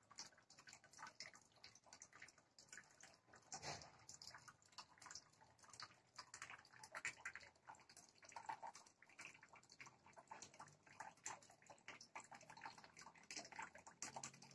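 Near silence, with faint scattered crackles and ticks.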